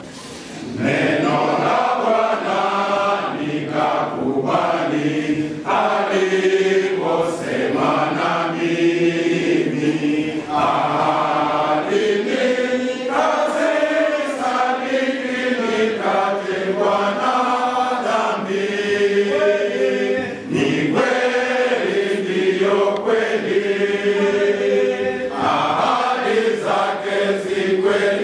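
A men's choir singing a Swahili hymn together, phrase after phrase, with a short breath pause at the start and another about twenty seconds in.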